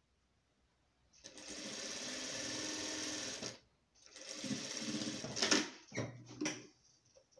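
Sun Special industrial straight-stitch sewing machine sewing bias binding onto the edge of a rug. It starts about a second in and runs steadily for about two and a half seconds, stops briefly, then runs again. A few sharp clicks follow near the end.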